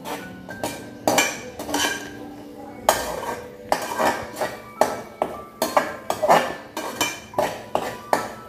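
A spoon stirring thick masala paste in a pressure cooker, scraping and knocking against the pot's sides and bottom in quick repeated strokes, about three a second for most of it.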